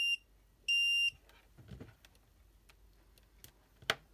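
Continuity tester beeping with a high steady tone that cuts off just after the start, then sounds again briefly about a second in, as the probes touch the wire ends: the circuit is complete and the solder joints are good. A sharp tap near the end.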